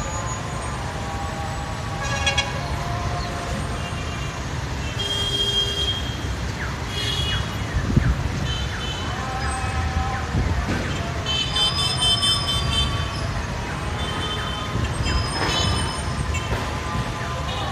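City traffic: a steady low rumble with car horns tooting now and then, and brief high-pitched calls scattered through.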